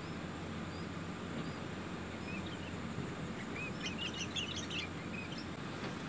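Small songbirds chirping at a nest: a quick cluster of high, rapid chirps about four seconds in, with faint single peeps scattered throughout, over a steady low background noise.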